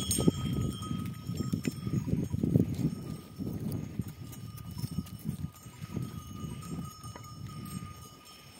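A large herd of goats moving about on stony ground, hooves shuffling and clattering over rocks in an uneven patter.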